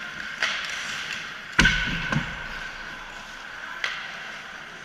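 Ice hockey play: a few sharp clacks of sticks and puck, the loudest and deepest about one and a half seconds in, over a steady hiss of skating.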